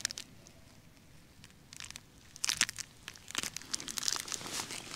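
Chocolate bar wrapper crinkling in the hand, with bites and chewing: scattered small crackles that start about a second and a half in and grow more frequent towards the end.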